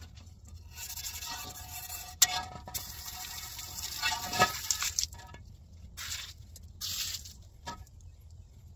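Hose water splashing onto a cast iron camp oven lid in several short bursts, with a sharp clink about two seconds in and lighter metallic knocks as the lid is handled on a steel mesh table.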